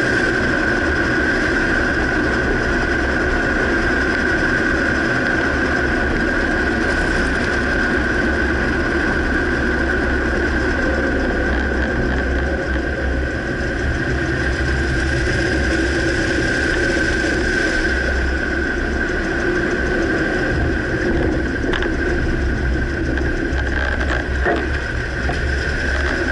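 A 2009 Dodge Ram pickup running steadily, with a low rumble and a constant high whine. Two faint short knocks come near the end.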